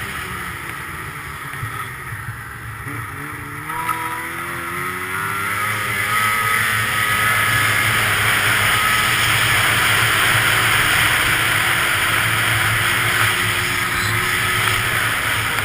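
Arctic Cat Crossfire 800 snowmobile's two-stroke engine revving up, its pitch climbing from about three seconds in. It then runs loud and steady at high revs.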